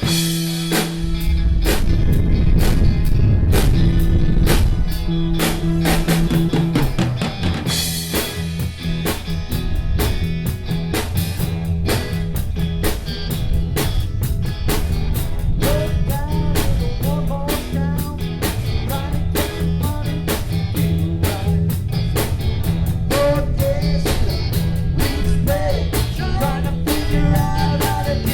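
Live rock band playing a blues-rock song: drum kit and electric guitar come in together at the start over a steady beat, with a melodic line weaving above it in the second half.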